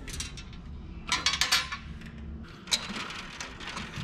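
Light metallic clinks and clicks of a small hand ratchet and loose cowling screws as fasteners are backed out: a quick run of clinks about a second in and one sharp clink near three seconds, over a low steady hum.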